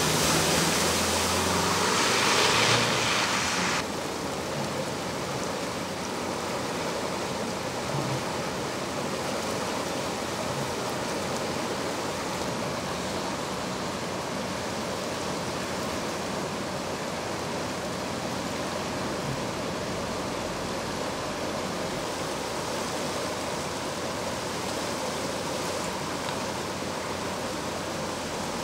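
Swollen, fast-flowing river in flood rushing steadily. A louder rush of noise fills the first few seconds and stops suddenly.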